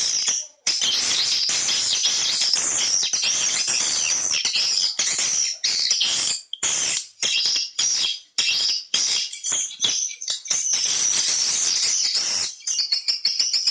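Swiftlet lure-call recording: dense, high twittering chirps of edible-nest swiftlets, broken by short gaps. About twelve seconds in, it changes to a quicker run of rapid, ticking chirps.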